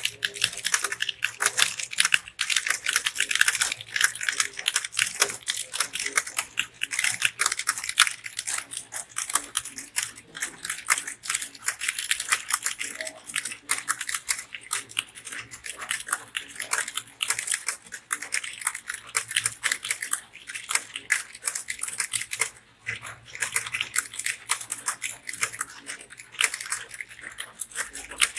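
Fast, continuous typing on a TVS computer keyboard: a dense stream of key clicks with hardly a break, and a brief lull about three-quarters of the way through.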